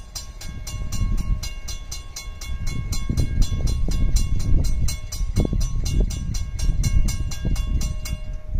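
Grade-crossing warning bell ringing in rapid even strokes, about four a second, and stopping near the end as the crossing gates lift after the train has passed. An uneven low rumble runs underneath.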